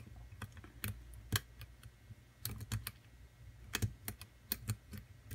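Diamond pick and tension wrench working the pins of a pin-tumbler challenge lock: faint, irregular clicks, some coming in small clusters, as the pins are lifted and the core gives into a false set.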